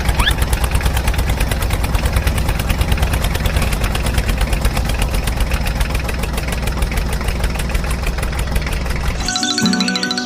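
Engine idling with a rapid, even chugging knock, cutting off suddenly near the end.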